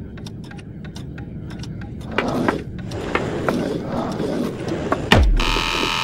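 Dramatic film sound design: a run of sharp clicks, then a swelling rush of noise from about two seconds in, and near the end a steep falling whoosh into a deep boom with a harsh hiss over it.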